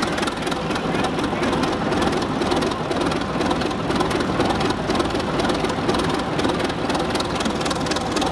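Vintage five-cylinder diesel engine running steadily with an even, rapid run of firing pulses.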